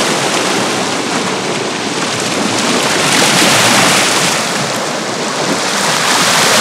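Sea water washing and surging against shoreline rocks, a steady rushing that swells louder about three seconds in and again near the end.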